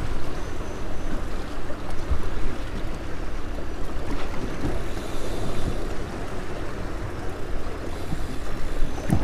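Steady wind noise on the microphone over waves lapping against a boat hull.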